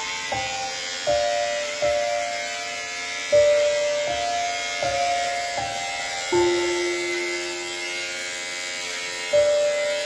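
Electric hair clippers buzzing as they cut a small child's hair, under background music: a slow plucked-string melody.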